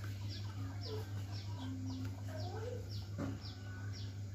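A bird chirping over and over, short high falling chirps about twice a second, with a few lower clucking calls, over a steady low hum.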